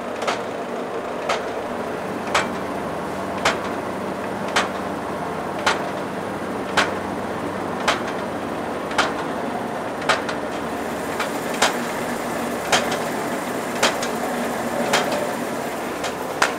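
Dough sheeting machine running, with a steady mechanical hum. A sharp click repeats about once a second as the rollers and conveyor turn.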